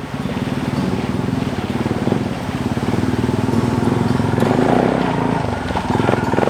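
Suzuki DR650's single-cylinder engine running steadily, its rapid firing pulses even throughout.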